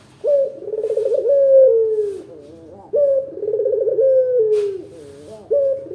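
A ringneck dove ('puter') cooing. Three rolling coos come about two and a half seconds apart; each opens with a short higher note, trills through the middle and ends in a falling note.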